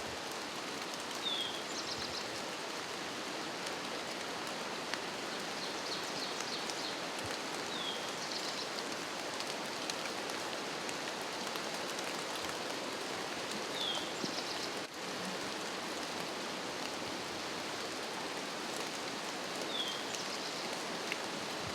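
Steady light rain falling on the woods. A bird repeats a short, high, falling call about every six seconds.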